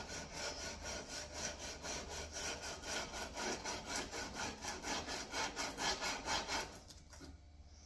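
Sandpaper wrapped around a steel block rubbed back and forth along a steel chopper blade, hand sanding at about three strokes a second. The strokes stop about seven seconds in.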